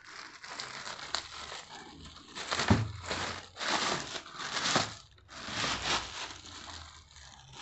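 Thin clear plastic bag crinkling and rustling as it is pulled off a pressure washer, in several short bouts.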